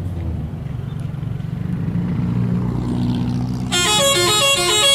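A bus engine running and growing louder, then about three and a half seconds in a 'telolet' multi-tone horn starts up, playing its stepping, repeating tune.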